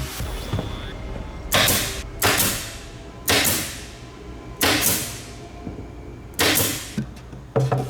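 Five separate scraping strokes, each fading quickly, over faint background music.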